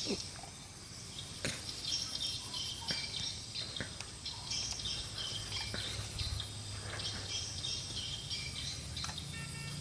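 Outdoor ambience of birds and insects chirping on and off, with a few short sharp clicks.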